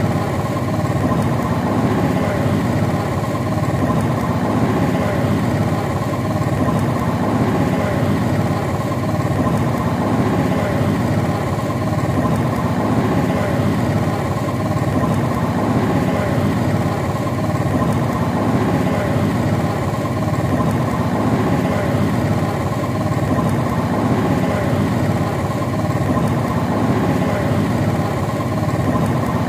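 Motorbike engine running steadily while riding along a road, with road and wind noise.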